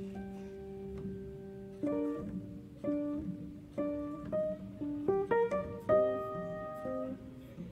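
Background music: a slow melody of single plucked-string notes that ring and fade, with one long note at the start and quicker notes from about five seconds in.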